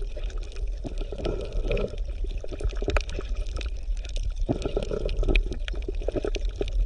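Water bubbling and gurgling, with irregular small pops over a steady low rumble.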